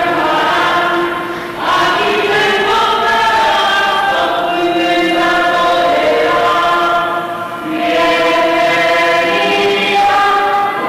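A group of voices singing together in a choir-like chant of long held notes, with short breaks between phrases about one and a half and seven and a half seconds in.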